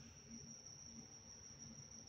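Near silence with a faint, steady high-pitched whine and a low hum underneath.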